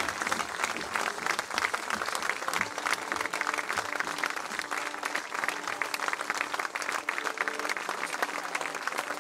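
Audience applauding, many people clapping.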